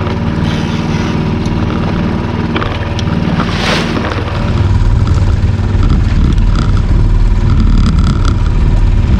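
Boat's outboard motor running steadily at trolling speed, about three miles an hour; the low rumble grows louder about halfway through.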